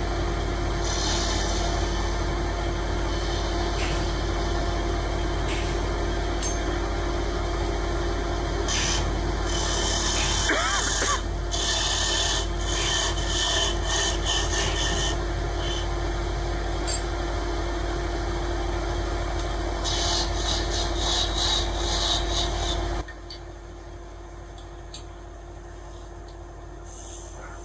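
A hand file rasps on wood in runs of scratchy strokes, over a steady low hum. The sound drops away abruptly about 23 seconds in.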